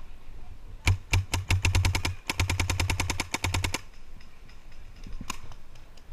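Paintball marker firing in rapid strings of shots, about ten a second, for around three seconds with a short break near the middle. A few scattered single shots follow.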